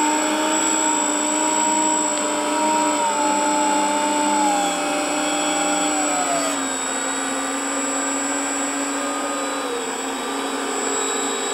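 Electric motors and propellers of an RC tricopter, spinning inside ducted fans while it hovers: a steady whine of several tones that waver as the throttle changes, with one tone dropping in pitch about halfway through and another a little later.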